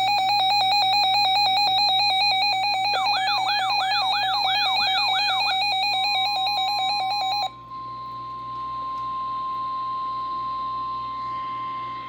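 A loud electronic alert alarm of rapid repeating beeps, with a warbling rising sweep layered over it for a couple of seconds in the middle, cuts off about seven and a half seconds in. From about six seconds in, the steady single-pitch 1050 Hz NOAA Weather Radio warning alarm tone sounds, signalling that a warning message follows.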